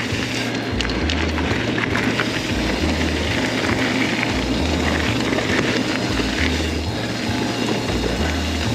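Mountain bike riding along a dirt trail: a steady rush of tyre noise with scattered clicks and rattles from the bike, over background music with a repeating bass line.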